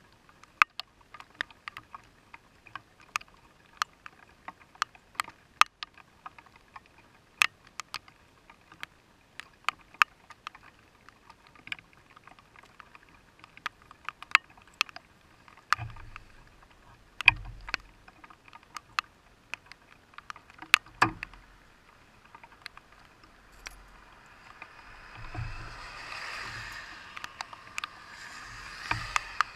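Rain striking the glass and body of a stopped vehicle close by, heard as sharp, irregular ticks a few times a second. A few dull low thumps come in about halfway through, and near the end the rain thickens into a soft steady hiss.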